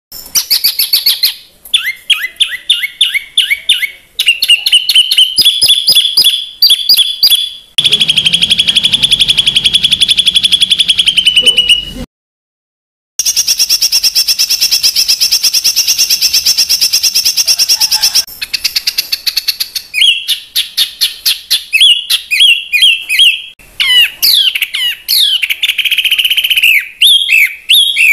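Recorded songbird song made of rapid, harsh repeated notes and fast rattling trills, spliced together with abrupt cuts and a brief silent gap about twelve seconds in. These are coarse 'tembakan' phrases used as master song for training competition songbirds.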